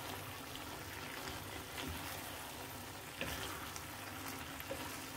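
Black bean stew sizzling low in a non-stick frying pan while a wooden spoon stirs chopped coriander through it, with a couple of short spoon scrapes against the pan.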